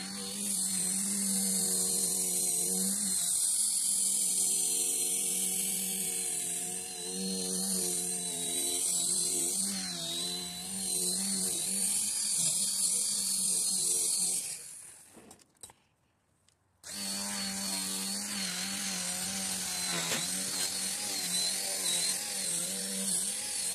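Cordless micro polisher spinning its pad on a plastic headlight lens: a steady electric motor hum with a high hiss. The sound fades away about 15 seconds in, is near silent for a couple of seconds, then starts again sharply.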